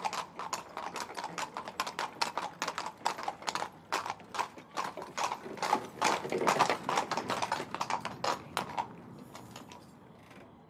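Hooves of a pair of carriage horses clip-clopping on cobblestones as a horse-drawn carriage passes, a dense irregular clatter that thins out and fades near the end.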